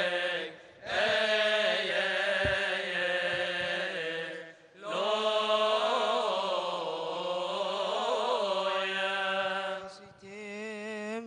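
Coptic liturgical chant sung by deacons' male voices: a slow, melismatic hymn line with long held notes that bend up and down. It breaks off briefly for breath about a second in, near the middle and near the end.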